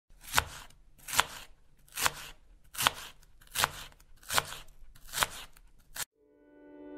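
Intro sound effect for a logo animation: eight sharp, crisp strikes evenly spaced a little under a second apart, stopping about six seconds in.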